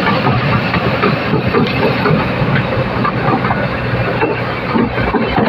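Hydraulic excavator at work: its diesel engine running steadily, with frequent metallic knocks and clatter.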